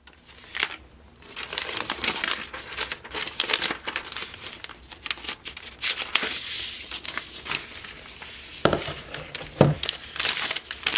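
Protective wrapping sheet rustling and crinkling as a MacBook Pro is slid out of it. Near the end come two soft knocks, about a second apart, as the laptop is laid on the desk.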